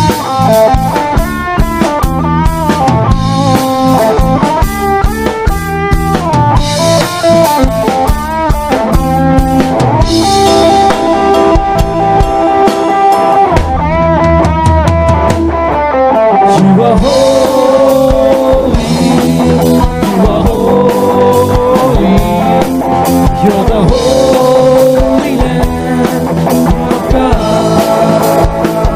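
A band playing an instrumental passage: an electric guitar leads with bent, sliding notes over a drum kit and bass guitar.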